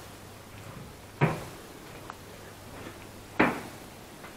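Two loud, hollow thuds about two seconds apart, each dying away quickly, as from something knocking against metal.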